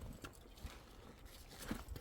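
Irregular footfalls, a few soft thuds of steps on the ground.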